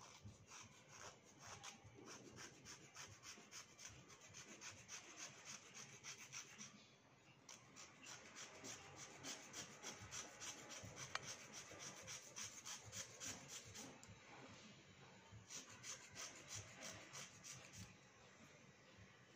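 Slate pencil being scraped with a small blade: a fast run of dry rasping strokes, about five a second, with two short pauses.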